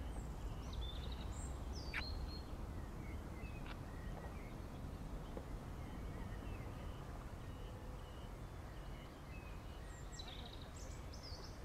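Outdoor ambience: a steady low background rumble with scattered short bird chirps, a cluster in the first second or so and another near the end.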